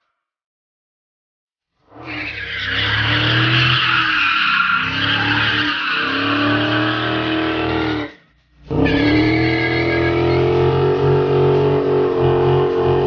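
A Dodge Challenger Scat Pack's V8 held at high revs during a burnout, with the rear tyres squealing as they spin. It starts about two seconds in, with the revs rising and falling at first. It breaks off for a moment about eight seconds in, then comes back holding steady.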